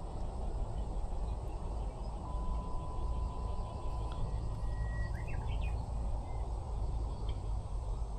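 Outdoor riverside ambience: a steady low rushing noise, with a few faint bird chirps a little past halfway.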